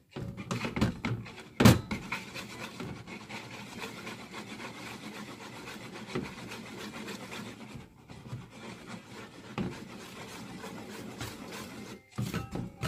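Wire whisk stirring flour into a wet batter in a plastic mixing bowl: steady rubbing and scraping, with a sharp knock a little under two seconds in and a few more knocks near the end.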